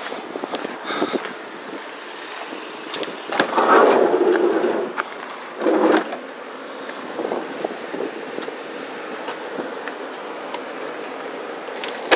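Clunks, clicks and rattles of a minivan's seats and sliding door being handled, with two louder clattering bursts about three and a half and six seconds in.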